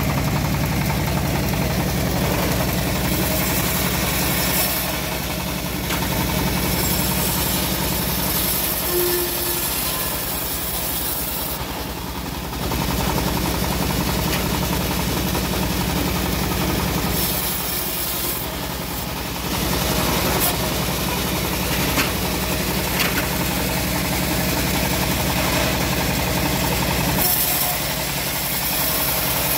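Engine-driven homemade bandsaw mill running, its blade cutting through a teak log, over the steady drone of the engine that drives it. The sound dips briefly twice.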